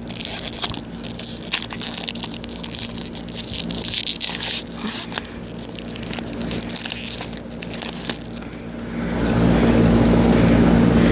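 Crinkling and tearing of a baseball card pack's wrapper, with cards rustling as they are handled. About nine seconds in, a steady engine drone with a low hum rises and stays, louder than the crinkling.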